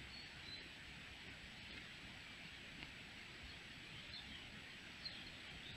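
Faint woodland ambience with a steady hiss and a thin constant high tone, broken by a few brief, faint, high bird chirps near the start and again about four and five seconds in.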